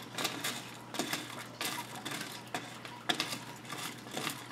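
Aquarium running: a steady low hum with irregular light clicks and ticks, a few a second.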